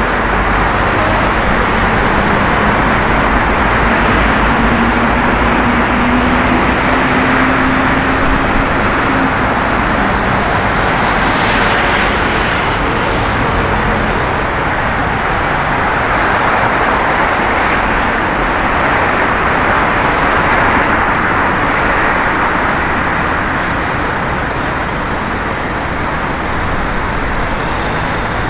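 Steady city street traffic noise with cars passing, swelling and fading as vehicles go by; a few seconds in, one engine note rises slowly in pitch as a vehicle pulls away.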